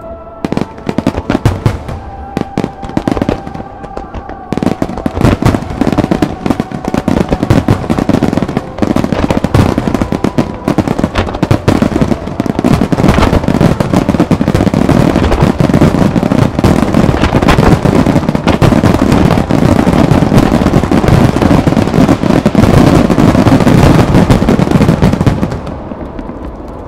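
Aerial firework shells bursting, first as separate bangs, then thickening into a dense, continuous barrage of bangs and crackle for the second half. The barrage eases off sharply near the end.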